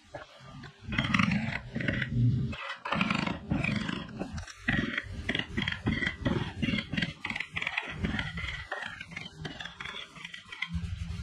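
Rough scraping of a tool on wood in quick, uneven strokes, with short pauses between runs.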